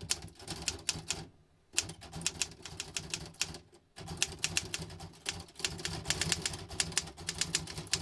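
Typing on a 1950s Royal HH manual typewriter: quick runs of sharp clacks as the typebars strike the platen. Two brief pauses break the typing, about a second and a half and about four seconds in.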